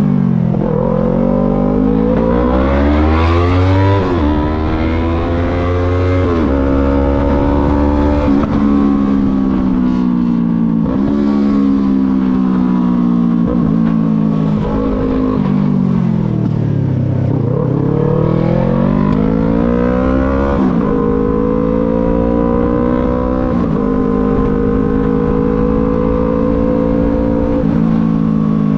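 Yamaha MT-03 motorcycle engine accelerating through the gears, its pitch rising and dropping briefly at each upshift; about midway it slows with falling pitch, then pulls up through the gears again and settles into a steady cruise.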